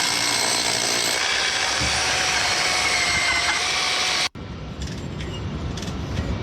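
Power tool running steadily on stone, a dense harsh noise with a faint motor whine, that cuts off abruptly about four seconds in; quieter, scattered workshop sounds follow.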